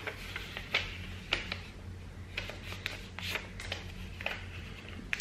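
A small paper slip being folded and creased by hand: a scatter of soft, irregular crinkles and taps, with a sharper tap at the very end.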